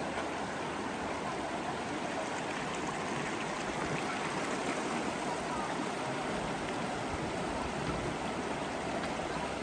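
River water running steadily over a shallow, rocky riverbed around a bamboo raft, an even rushing and babbling.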